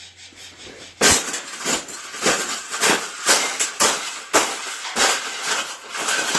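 Wire bird cage being bent into shape, its metal frame clanking in an irregular run of sharp knocks, about two or three a second, that begins about a second in.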